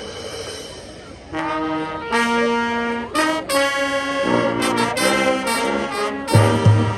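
High school marching band's brass section opening its show with loud, held chords that begin about a second in, then moves into quicker notes. Low drum hits come in near the end.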